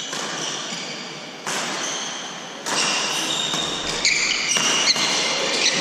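Badminton rally: sharp smacks of rackets hitting the shuttlecock, several in a row, with short high squeaks of shoes on the wooden court floor, echoing in a large hall.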